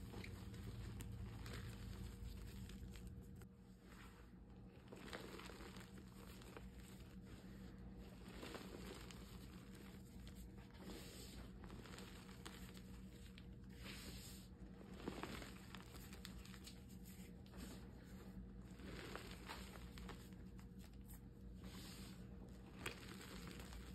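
Hands crushing and crumbling reformed gym chalk into loose powder: faint, soft crunches and powdery rustling, with an occasional louder crunch.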